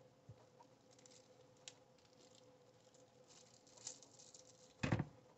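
Hands pressing and squishing wet, starch-soaked paper strips onto a plastic-wrapped form, giving faint scattered crackles and soft ticks. A single short thump sounds about five seconds in.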